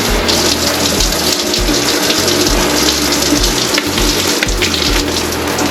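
Water spraying steadily from a newly installed rain shower head during a test run. A low, regular beat sits underneath.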